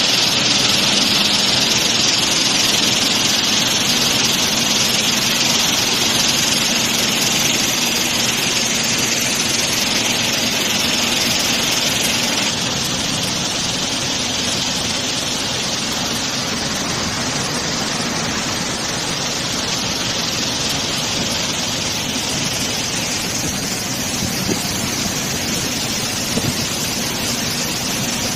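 Manufactured-sand washing plant running: screw sand washer, vibrating dewatering screen and belt conveyors making a steady mechanical din with a hiss of water and wet sand. It gets slightly quieter about twelve seconds in.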